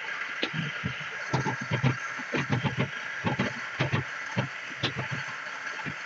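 Drill press running with steady motor noise, its bit cutting into a wooden box in many short, irregular bursts as the wood is pressed against it.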